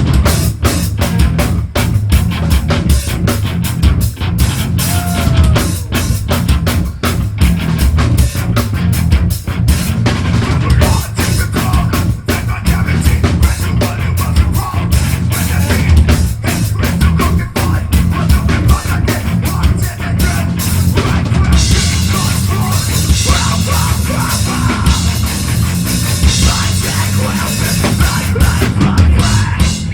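Heavy metal band playing live, loud, with fast, dense drumming and distorted guitar. About two-thirds of the way in, the drumming thins and a bright, sustained wash of cymbals and guitar takes over.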